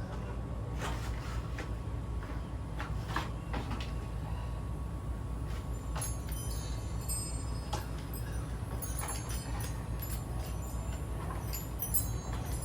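Scattered knocks and light metallic clinks from handling lattice, brackets and screws, over a steady low hum. The clinks come thicker in the second half.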